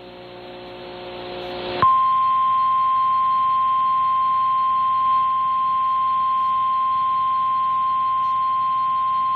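Radio static hiss swelling for about two seconds, then the NOAA Weather Radio warning alarm tone switches on: one steady 1050 Hz tone held unbroken. It signals that a warning message is about to be broadcast.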